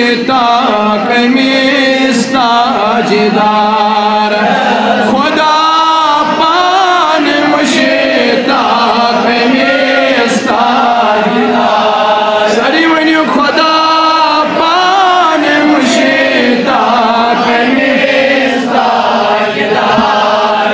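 A man singing a Kashmiri naat, a devotional song in praise of the Prophet Muhammad, in long, wavering held notes without a break.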